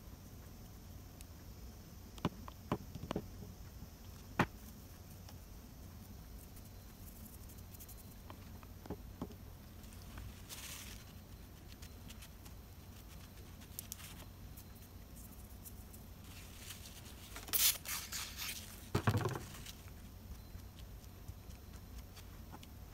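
Quiet handling of craft tools: a few light clicks and taps of metal tweezers placing foil flakes on glued tissue paper, then short rustles later on as a wet wipe is taken up and pressed onto the sheet. A faint steady low hum lies under it all.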